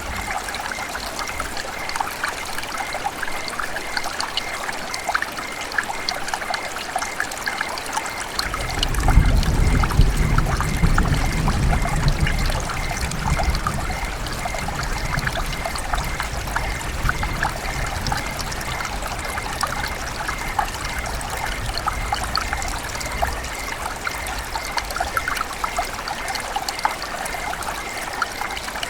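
River water running and trickling over rocks, a steady bubbling, gurgling rush. A low rumble swells about a third of the way in and fades over the next several seconds.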